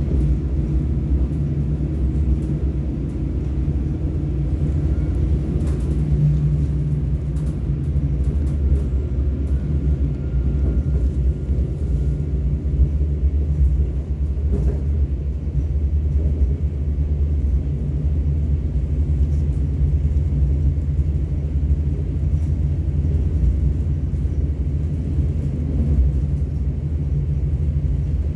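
Korail Mugunghwa passenger train running at speed, heard from inside the coach: a steady low rumble.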